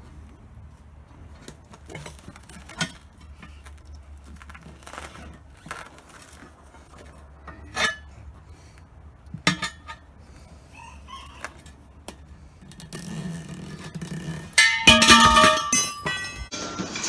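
Light metal clinks and knocks at irregular intervals, crowbars and a steel wheel rim being handled, followed about fifteen seconds in by a louder burst of clatter with ringing tones.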